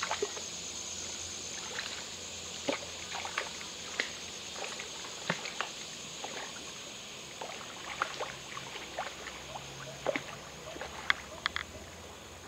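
A hooked tilapia splashing at the lake surface as it is played and reeled in: irregular small splashes and sharp clicks, several a second at times, over a steady high-pitched background drone.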